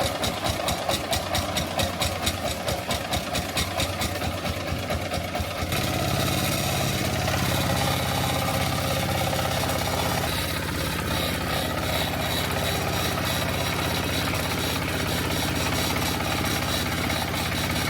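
Engine of a rice hulling machine running. For the first six seconds or so it chugs in distinct pulses, about four a second, then settles into a steadier, fuller drone.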